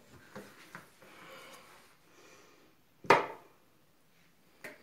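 Small kitchen handling noises: a spoon clicking lightly in a plastic mixing bowl, then one sharp knock about three seconds in and a short click near the end.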